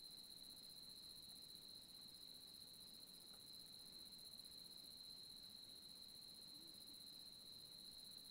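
Faint steady high-pitched trilling of crickets or other night insects, an unbroken chorus.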